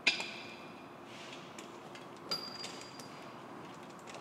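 Metal airline fitting being threaded by hand into a brass manifold: small metallic ticks, with a sharp clink and short ring at the start and another ringing clink about two seconds in.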